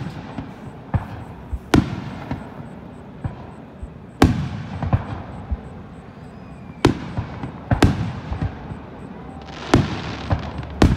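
Aerial firework shells bursting: about six loud, sharp booms a second or two apart, with smaller pops between them and echo trailing after each.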